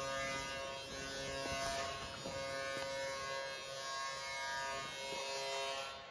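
Background music made of sustained droning notes that change every second or so, cutting off abruptly at the end.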